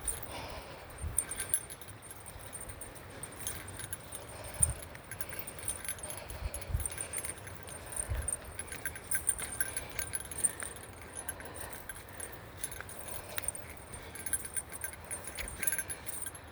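Small metal bear bell jingling over and over in quick irregular rings as the wearer walks, with a few dull low thumps in between.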